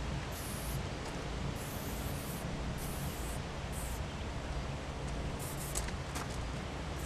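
Aerosol spray-paint can hissing in several short bursts of under a second each as a piece is painted on a freight car, over a steady low outdoor rumble. A few sharp clicks follow a little past the middle.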